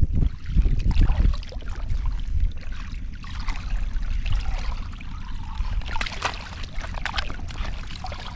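Water splashing and trickling, with scattered sharp splashes, a cluster of them about six seconds in. Wind rumbles on the microphone in the first second or so.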